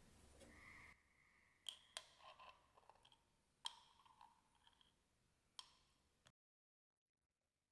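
Thick sauce pouring from a ceramic jug into a glass of iced milk, a faint gurgling tone that stops about a second in. Then four faint, sharp clinks with brief ringing as the ice, glass and spoon touch, with smaller ticks between them, before the sound cuts off.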